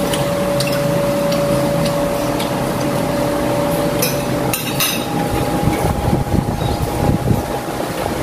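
Spoons and forks clinking and scraping on dinner plates, with two sharper clinks a little after halfway, over a steady mechanical hum whose held tone steps up in pitch at that point.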